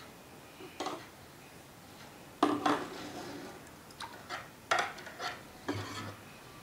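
A metal spoon clinking and scraping against a bowl and a dosa pan while oil is put on the pan and batter is scooped: about half a dozen sharp clinks, irregularly spaced.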